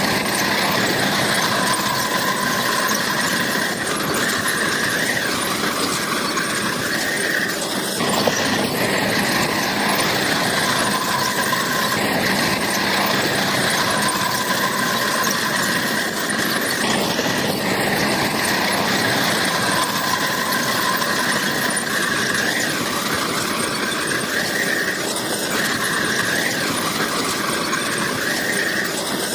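Crawler bulldozer at work: the machine's running noise with a steady high-pitched squeal over it, typical of a dozer's tracks and undercarriage.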